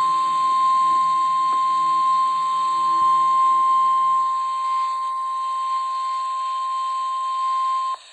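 NOAA Weather Radio's 1050 Hz warning alarm tone: a single steady, high-pitched tone from the weather radio's speaker that cuts off suddenly near the end. It marks the start of a broadcast alert, here a tornado watch.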